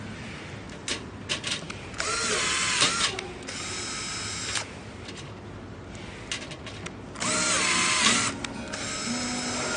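Cordless electric drill driving a rivet nut gun adapter: a few clicks, then two loud bursts of running in which the motor's whine dips in pitch under load and recovers. Each burst is followed by about a second of steadier, quieter running.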